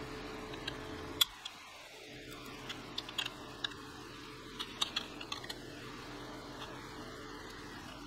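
Scattered light metallic clicks and taps of pliers working on the steel bracket at a graphics card's connectors, a sharper click about a second in and small clusters around three and five seconds in.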